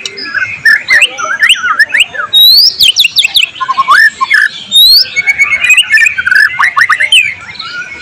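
White-rumped shama singing a loud, fast, varied song of sharp whistles, quick rising and falling glides and crisp clicking notes, in short rapid phrases.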